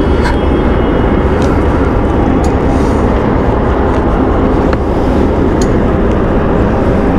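Royal Enfield Himalayan motorcycle on the move: a loud, steady rush of wind over the microphone with the bike's engine running low underneath.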